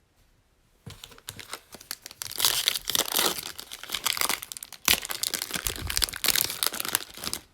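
A trading card pack's plastic wrapper being torn open and crinkled. It starts about a second in and goes on as a dense run of crackles.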